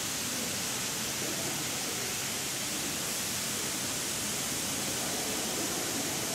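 Sprinkler system spraying a fine water mist, a steady, even hiss.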